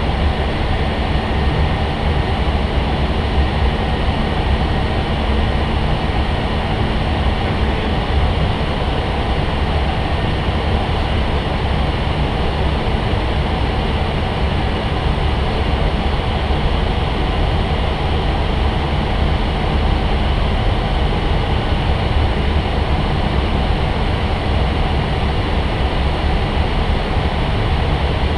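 Steady rushing cockpit noise of an Airbus A320 in flight, mostly airflow and ventilation, deep and unchanging, with a faint low hum that fades out in the first few seconds.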